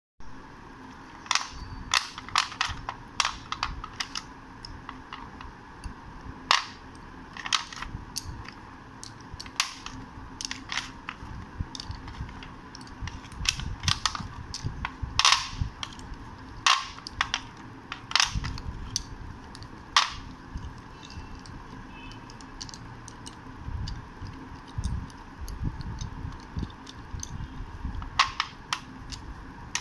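Slate pencils and small slate cubes clicking and clacking against each other and the hard tabletop as they are picked up and handled, in irregular sharp clicks, some in quick clusters.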